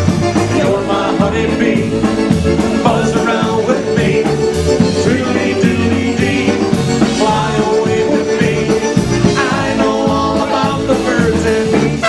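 A live polka band playing an instrumental passage: accordion, electric guitar, electric bass and drums with a steady beat.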